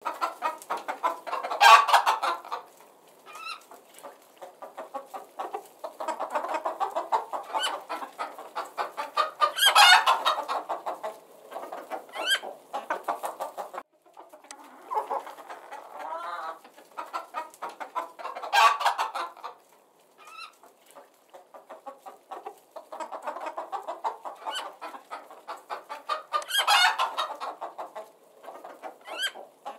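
Chickens clucking in runs of quick clucks, with a louder squawking burst about every eight or nine seconds.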